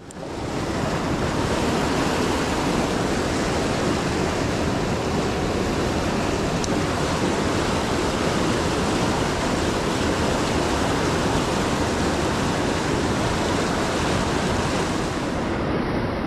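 Rapids of the South Platte River rushing over boulders: a steady, full rush of water that fades in over the first second.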